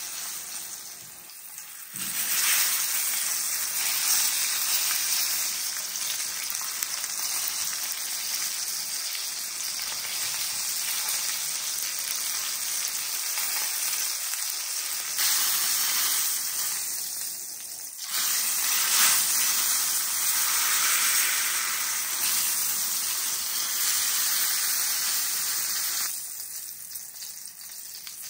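Beef roast searing in hot oil in a cast iron skillet, sizzling loudly to build a crust. The sizzle surges about 2 seconds in and again about 18 seconds in, then dies down near the end as the roast is lifted out of the pan.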